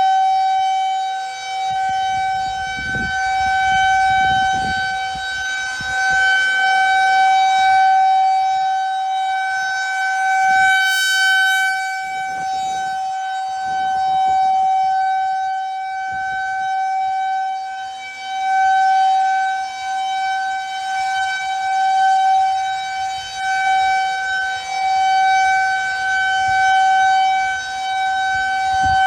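Federal Signal 2001 rotating outdoor warning siren sounding a steady single-pitch tone for a scheduled tornado siren test. The tone swells and fades in loudness every two to three seconds as the siren head turns.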